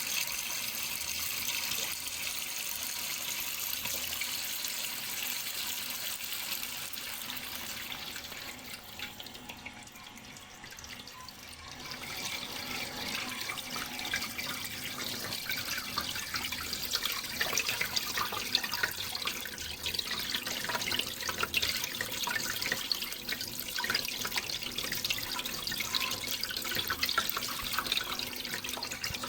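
Running water, a steady splashing rush that eases to a quieter stretch about ten seconds in, then comes back busier, with many small splashes and drips.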